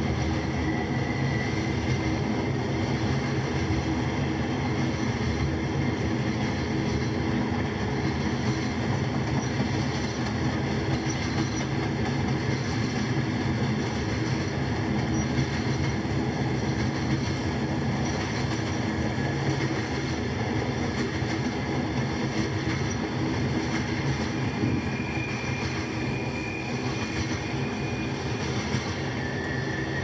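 Dubbed-in sound effect of a full-size freight train rolling past: a steady rumble of cars on the rails, with a faint high squeal that comes and goes near the start and again near the end.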